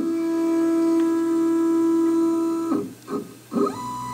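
Stepper motors of a Stainless OX DIY CNC router whining during a Z-axis touch-plate probing cycle. A steady whine for almost three seconds as the spindle feeds down stops abruptly. Then come short moves whose pitch glides up, holds and glides down as the motor speeds up and slows, the retract after the probe has touched the plate.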